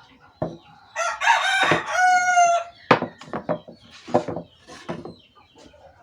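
A rooster crowing once, a call of a little under two seconds that ends on a held note, followed by a string of sharp knocks or taps.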